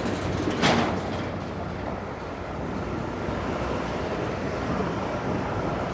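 Toronto streetcar running on its rails through a city street, with a steady rumble and one sharp clack under a second in.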